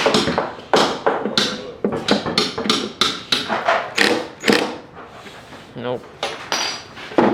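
Hammer blows on metal: a quick run of sharp knocks, about three a second, that thins out about five seconds in.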